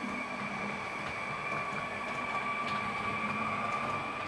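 H0-scale model of a DB Twindexx Vario double-deck train running, its onboard sound decoder playing a steady electric-train whine with several held tones through a small speaker, with a few faint clicks.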